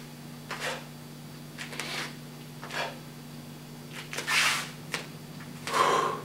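Soft swishes and breaths of a karate practitioner moving through a form in slow motion. There are a handful of short rushes of noise, the strongest about four seconds in and near the end, over a steady low hum.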